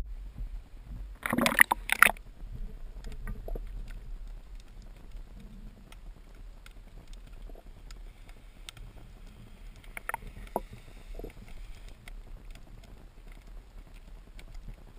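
Steady low rumble aboard a sport-fishing boat, with scattered knocks and clicks and a loud rushing burst about a second and a half in.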